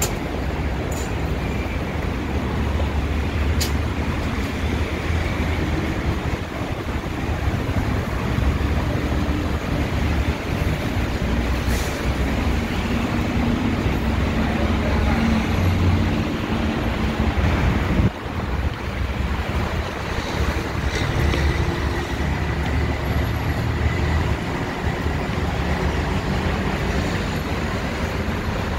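Steady noise of busy city road traffic, with a low engine rumble from passing vehicles.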